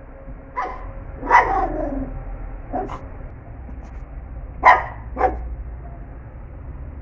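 Pinscher barking five times at irregular intervals, the second bark drawn out and falling in pitch, as it goes after a fly.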